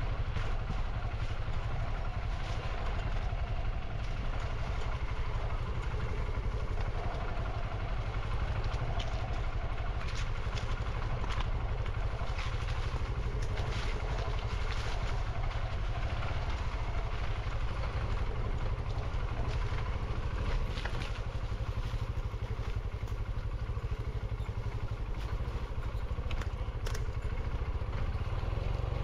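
Motorcycle running steadily while being ridden on a rough trail, under a heavy low rumble, with scattered short clicks and clatter.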